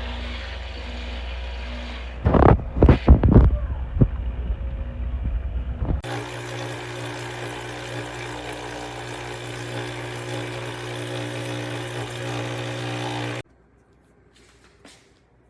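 ChefWave capsule espresso machine's 20-bar pump brewing: sputtering, spitting bursts over a low rumble for a few seconds, then a steady buzzing hum with a hiss that cuts off suddenly near the end as the pump stops.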